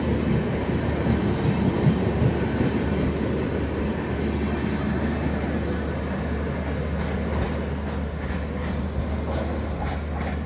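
Red-and-grey air-conditioned coaches of an express train rolling past at speed in a steady rail rumble. The sound eases a little as the last van goes by, with a few clicks near the end.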